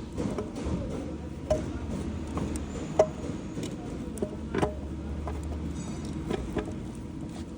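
Scattered clinks and knocks of tools and metal parts during a transfer case rebuild, the sharpest about three seconds in, over a low steady hum.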